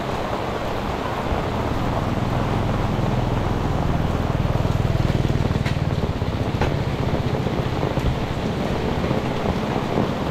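Heavy rain falling steadily, a dense, even hiss. A low rumble swells about halfway through and then fades.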